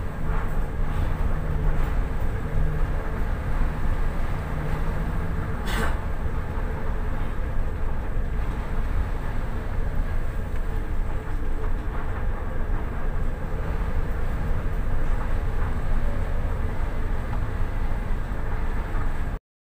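Steady low rumble of strong wind and heavy sea aboard a vessel in very rough weather, with a low hum over the first few seconds. A single sharp knock comes about six seconds in, and the sound cuts off suddenly just before the end.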